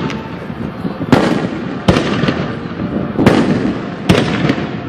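Aerial fireworks show: a string of loud shell bursts roughly a second apart, about four in all, each trailing off in a fading crackle.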